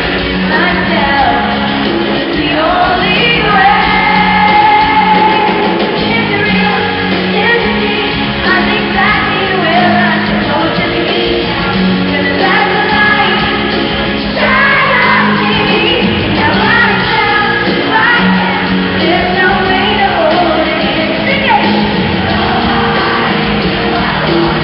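Live pop-rock song in a large arena: a woman sings the lead vocal over electric guitars and drums, with fans shouting along.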